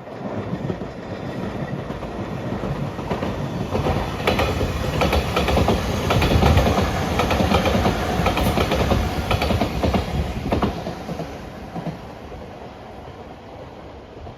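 Electric train passing close by, wheels clicking over the rail joints. It builds to its loudest about halfway through, then fades.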